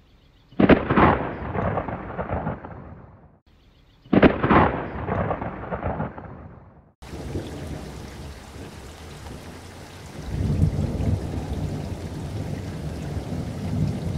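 Thunder-like sound effects: two loud crashes about three and a half seconds apart, each rumbling away over a couple of seconds, then a steady rushing noise with a low rumble that swells near the middle.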